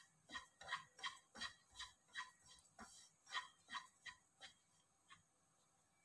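A spatula stirring dry bread crumbs roasting in a nonstick pan, giving short scraping strokes about three a second. The strokes stop about a second before the end.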